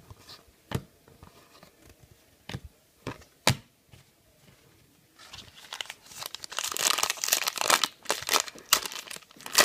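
A few sharp clicks of trading cards being handled, then from about five seconds in a card pack's wrapper crinkling and tearing as it is opened, the loudest part.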